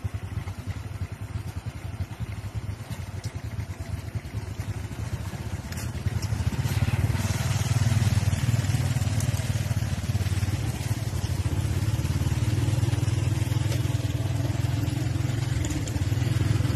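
Small motorcycle engine running with a steady low drone; about six seconds in it grows louder as the ride gets under way.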